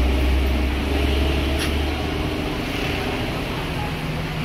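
Coach bus diesel engine running smoothly as the bus pulls away, a deep rumble that is strongest at first and fades over the next two seconds as it drives off.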